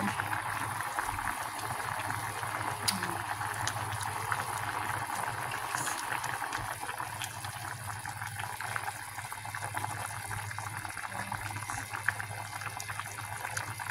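Chicken-wing and vegetable broth boiling in a pot: a steady bubbling and fine popping.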